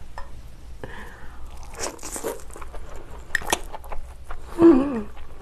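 Close-up eating sounds of spicy noodles: short noisy mouthfuls, clicks and chewing with a crunch. About four and a half seconds in comes a short hum of the voice, the loudest sound.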